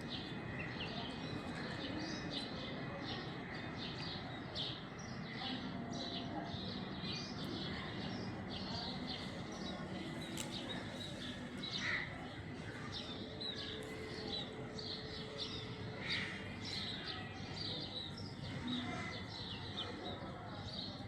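Small birds chirping: many short, high chirps, repeated all through.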